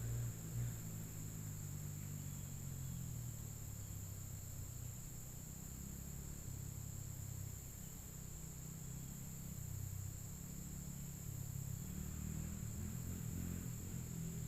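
Honda CRF100F dirt bike engine running at a low level, its pitch wavering a little. Crickets trill steadily alongside it.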